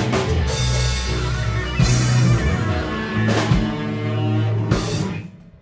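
Live rock band of drums, bass, electric guitars and keyboards playing held chords, punctuated by crashing drum hits about every second and a half. The music then stops about five seconds in.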